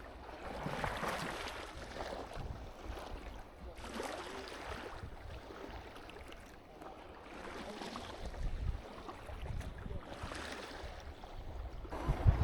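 Small waves washing in on a beach, a hiss that swells and fades every few seconds, with wind gusting on the microphone.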